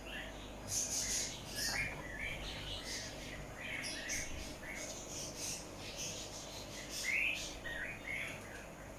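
Many small caged birds chirping and twittering at once, short overlapping calls with scratchy, raspy notes among them.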